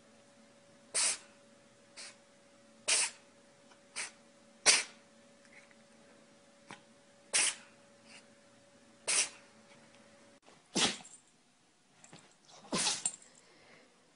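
A pet sneezing repeatedly, in about nine short sharp sneezes spaced roughly one to two seconds apart. A faint steady hum underneath stops about ten seconds in, and the sneezing carries on after it.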